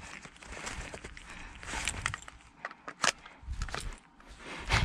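Scattered clicks and rustling from an airsoft rifle being handled, with shuffling footsteps; a sharp click about three seconds in, and a duller knock near the end.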